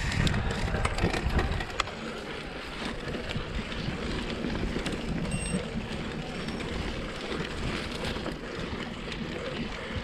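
Mountain bike ridden along a dirt singletrack: tyres rolling on dirt with scattered clicks and rattles from the bike, under wind buffeting the camera microphone. The wind rumble is heavier for the first couple of seconds, then eases.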